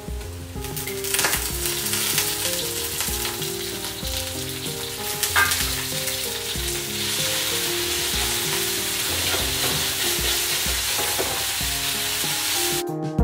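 Minced meat sizzling and frying in hot oil in a wok, stirred and scraped with a metal spatula. The sizzle swells about half a second in and stays steady, with a couple of sharp scrapes of the spatula.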